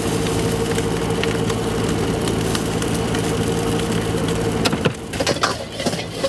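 A steady machine hum, like an engine running, with scattered sharp clicks and knocks. The hum cuts out about five seconds in, leaving only clicks and rustling knocks.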